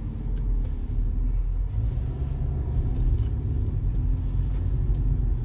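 Low, steady rumble of a car's engine and tyres heard from inside the cabin while it moves slowly in traffic.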